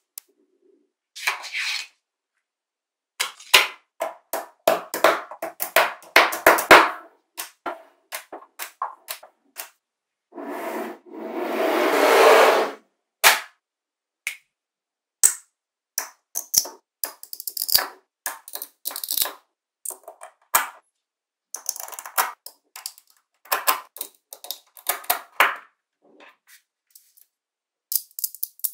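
Small magnetic balls clicking and snapping together, in quick runs of sharp clicks with short silences between, and a longer rattling rush about eleven seconds in.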